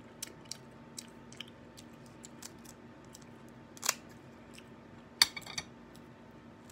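Kitchen scissors snipping through cooked crab shell: a sharp crack just before four seconds in and a quick cluster of snaps about five seconds in, the loudest sounds. Between them come small scattered clicks of shell being handled and chewed.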